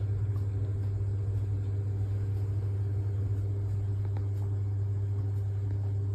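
Steady low hum, with a few faint clicks over it.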